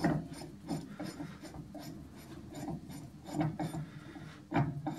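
Steel Acme-threaded vice screw being turned by hand into a freshly cut Acme nut during a trial fit: metal threads scraping and rubbing in short, uneven strokes.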